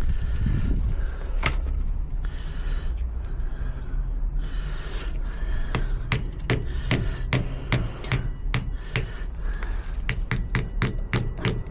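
Rapid metal-on-metal taps, about four a second, each leaving a high ringing tone, in two runs starting about six and about ten seconds in: steel fittings of a garage door defender being struck or tapped into place.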